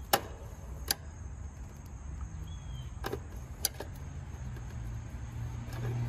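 A few sharp metallic clicks as a screwdriver pries an old wire's spade connector off a terminal on the AC condenser's contactor. A low steady hum runs underneath and swells a little toward the end.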